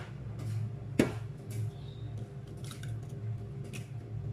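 An egg being cracked and opened into a mixing bowl: one sharp tap about a second in, then a few faint clicks of shell, over a steady low hum.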